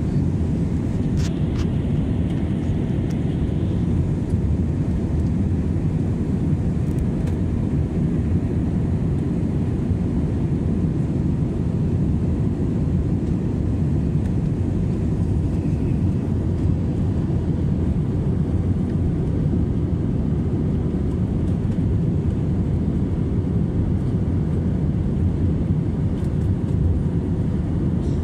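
Steady low rumble of jet engines and rushing air heard inside an airliner's cabin in flight.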